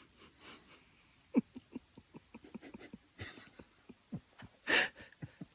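Scattered water drops plinking, each a short note falling quickly in pitch. Three breathy exhalations close to the microphone; the last one, near the end, is the loudest.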